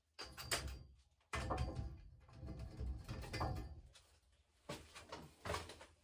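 Handling noises in several irregular short spells, rustling with light knocks and bumps. No saw is running.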